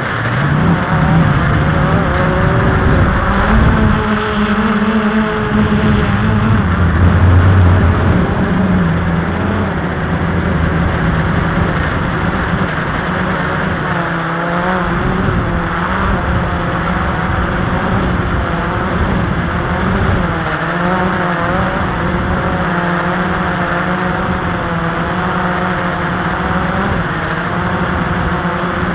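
Multirotor drone's electric motors and propellers whirring steadily, several pitches wavering up and down as the motors adjust speed, over a dense rushing noise.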